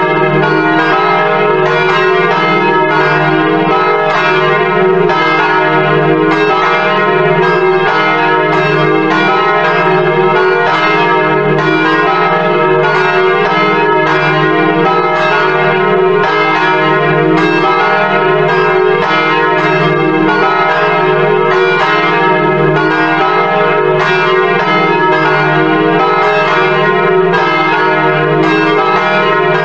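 Church bells pealing, a continuous run of overlapping bell strikes at a steady pace.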